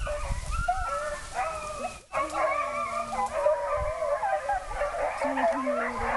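A large pack of beagles baying together, many hound voices overlapping in drawn-out, wavering howls, broken off for an instant about two seconds in.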